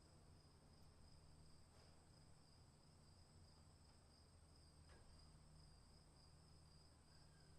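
Faint outdoor ambience: insects trilling steadily at a high pitch over a low steady rumble, with a couple of faint clicks.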